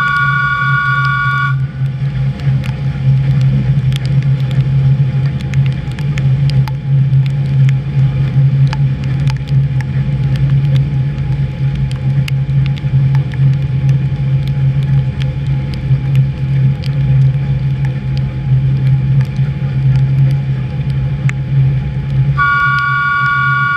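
HÉV electric suburban train running, heard from the driver's cab: a steady low hum with scattered clicks. A high, steady two-note whine stops about a second and a half in and comes back near the end.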